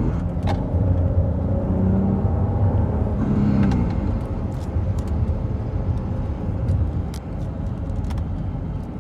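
Volvo XC70 T6's turbocharged 3.0-litre straight-six running with the pitch rising and falling under changing throttle, with a few sharp clicks scattered through. This is the strange noise on acceleration and lift-off that the owner says sounds as if something were about to break off.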